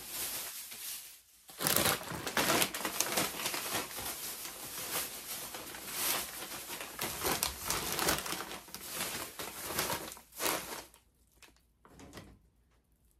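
Plastic shopping bag rustling and crinkling as hands rummage through it and pull items out. The sound is dense and continuous for most of the stretch and dies away near the end.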